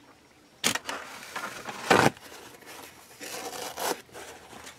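A polymer clay blade being cleaned off: two short sharp scrapes, one near the start and one about two seconds in, then a softer rubbing sound.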